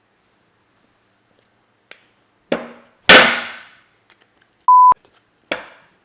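A few sharp knocks or crashes with ringing tails, the loudest about a second after the first, then a short pure beep and one more knock near the end.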